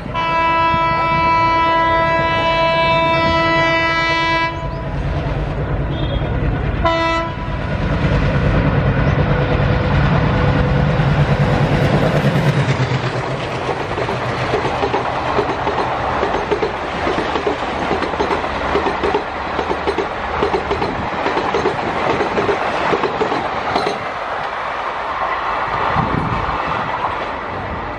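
WDM3A ALCo diesel locomotive sounding its horn in one long blast of about four and a half seconds and a short second blast, then its engine running hard as it passes at full speed. Its passenger coaches follow with a rapid clickety-clack of wheels over rail joints, easing off near the end.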